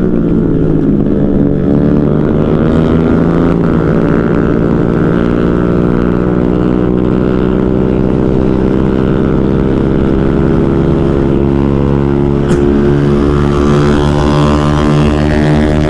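Motorcycle engine running hard at high revs while riding at speed. Its pitch falls in the first second, then holds steady.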